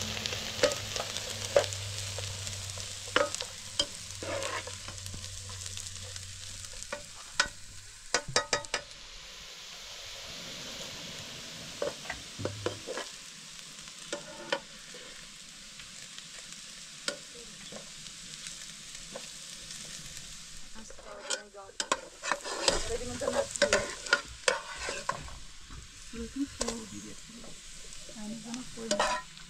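Sliced onions frying and sizzling in oil in a metal pan, with a metal spoon stirring and scraping against the pan in sharp clinks; the clinks come thick and fast later on.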